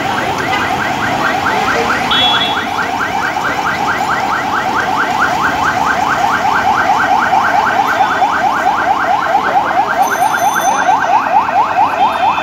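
Police escort vehicle's siren in a fast yelp, about six quick rising sweeps a second, getting louder as it approaches.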